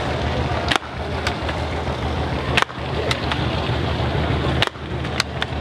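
Shooting-gallery rifle fired at balloons: three sharp cracks about two seconds apart, with fainter clicks between them. A steady low hum runs underneath.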